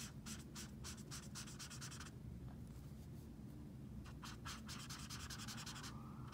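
Alcohol marker tip scratching across paper in quick repeated strokes, filling in a broad area of colour. The strokes pause about two seconds in and start again about four seconds in.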